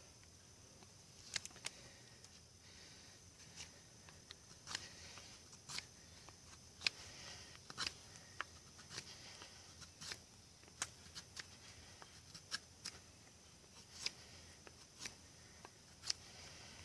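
A large 10-inch Nessmuk-style carbon-steel bushcraft knife carving wood, with a string of short, sharp cuts as the blade bites into a stick, roughly one a second and irregular, as in whittling a tent-stake point.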